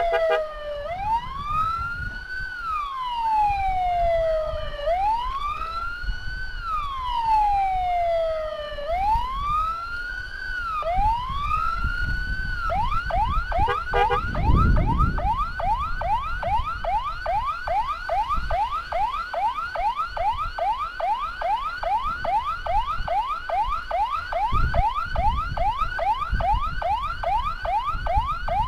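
Electronic siren on an ambulance escort, sounding to make traffic pull aside. It starts in a slow wail, each rise and fall taking about four seconds. About twelve seconds in it switches to a fast yelp of roughly two sweeps a second, over a steady low road rumble.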